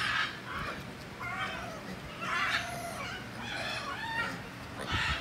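Squirrel monkeys calling: a string of short, high, pitched calls about once a second.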